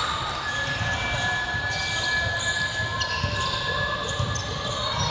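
Basketball being dribbled on a hardwood gym floor, with players' running footsteps echoing in a large hall.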